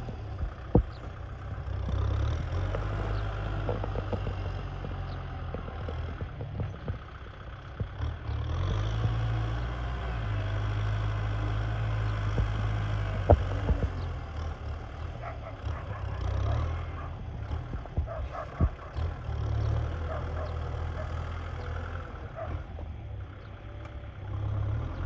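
Kubota M6040SU tractor's diesel engine running under load while pulling a rotary tiller, its low hum shifting every few seconds, with occasional sharp clanks.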